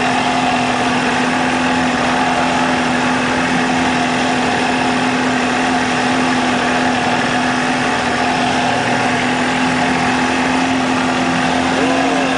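50 hp outboard motor running at a steady speed with one even, unchanging drone, over the rush of the churning wake.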